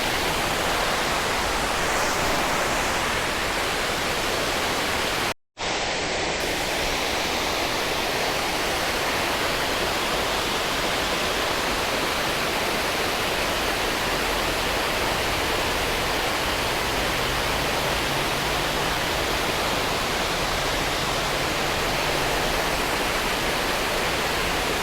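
Water rushing over a spillway: a steady, even roar of falling water, broken by a brief total drop-out about five seconds in.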